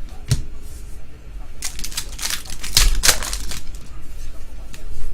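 Trading cards and foil pack wrappers being handled: a few sharp clicks and taps, and a stretch of crinkling rustle from about one and a half to three and a half seconds in.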